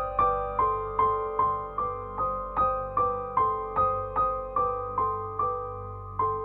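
Background music: a keyboard figure of evenly spaced piano-like notes, about two and a half a second, each note dying away before the next.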